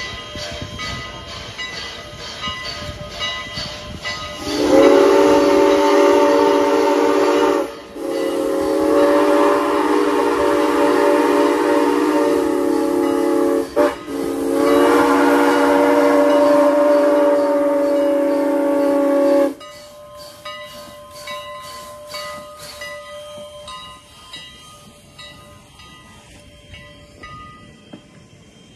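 Steam locomotive Canadian National 89 chuffing as it approaches, then sounding its steam whistle in three long blasts with short breaks between, a loud chord of several tones. After the whistle, the passenger cars roll by with the wheels clicking over the rails.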